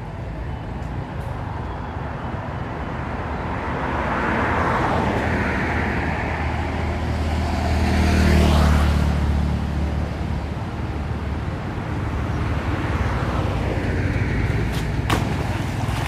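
Motor vehicles passing on a nearby road. Their engine and tyre noise swells and fades, with the loudest going by about eight seconds in and another passing near the end. A few sharp clicks come just before the end.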